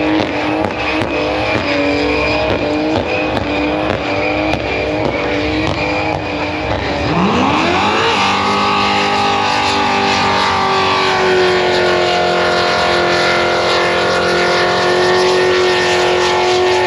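A burnout car's engine revving in short blips, then climbing sharply about seven seconds in and held steady at high revs.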